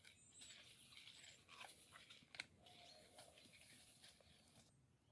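Faint rustling and crackling with scattered clicks, the sharpest about two and a half seconds in, and a few short, faint, high bird chirps. The rustling stops shortly before the end.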